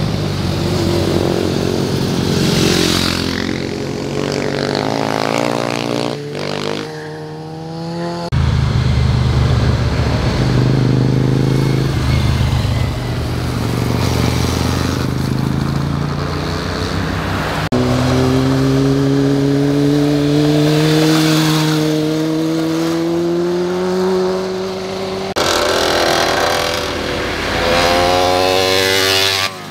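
Motorcycle engines heard from the roadside as several bikes ride through a bend one after another, in short clips cut together. Each engine note rises and falls as the bike throttles, shifts and goes by: a falling note several seconds in, a steadily climbing note in the later clip, and another falling note near the end.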